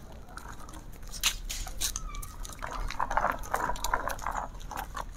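A dog panting as it walks, in a run of short breaths over the second half, with a few sharp clicks earlier on.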